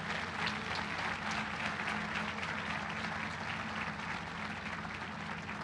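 Audience applauding, a dense patter of many hands clapping that slowly dies away near the end.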